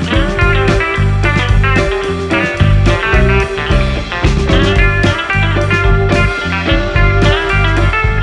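Background music led by guitar, with a steady bass and beat.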